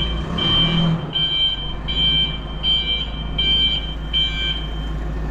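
A lift's motion alarm beeping, about one beep every three-quarters of a second, over a low machine hum; the beeping stops about four and a half seconds in.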